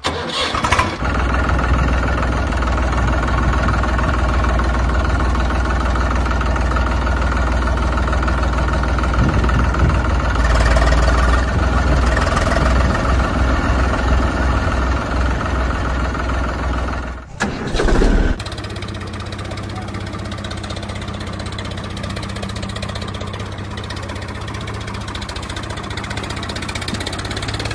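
Tractor engine running steadily. About 17 seconds in it cuts out briefly and picks up again as a quieter, steadier engine drone.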